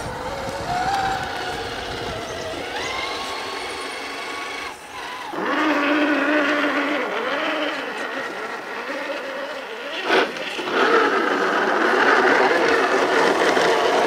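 Electric motors and geared drivetrains of 1/10-scale Traxxas TRX-4 RC crawlers whining as they crawl, the pitch rising and falling with the throttle. The sound changes abruptly about five seconds in, and there is a short sharp noise near ten seconds.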